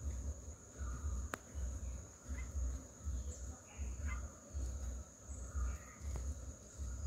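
Insects keep up a steady high-pitched drone, with a few faint short chirps from birds. Under it a deep rumble pulses evenly, about three times every two seconds, and there is a single sharp click about a second in.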